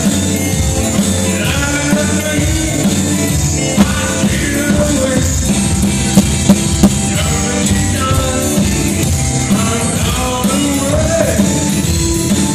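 Rock band playing live, with electric keyboard, drums and bass guitar and a male singer, heard from the crowd.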